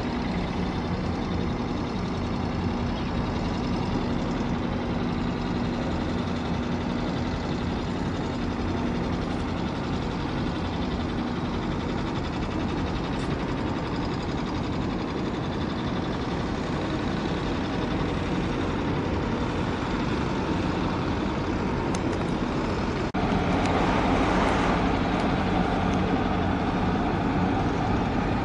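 Steady low engine rumble with a faint hum, with no speech. About 23 seconds in it changes abruptly and gets a little louder.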